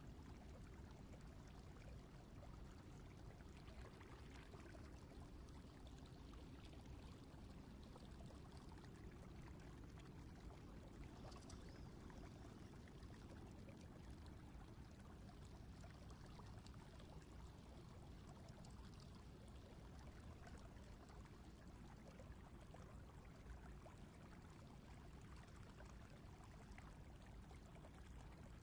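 Faint, steady rush of flowing water, even throughout with no distinct splashes or other events.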